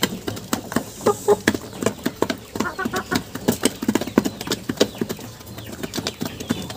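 Hens pecking grain from a wooden feed trough: rapid, irregular tapping of beaks on the wood, with a few short clucks.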